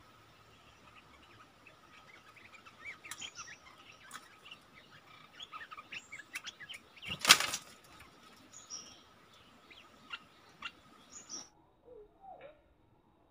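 Bulbuls calling with short chirps and twittering notes, with one loud, brief flutter of wings about seven seconds in. Near the end the chirping stops and only faint low sounds remain.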